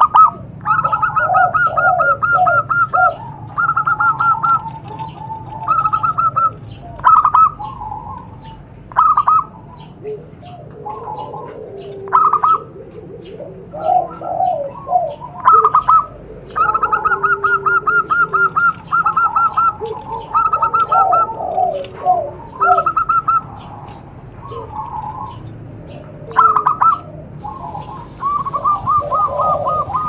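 Zebra doves (perkutut) cooing: repeated runs of short, quickly repeated notes, each run lasting a second or two, with lower, softer coos in between. The calls are quieter for a few seconds about a third of the way through.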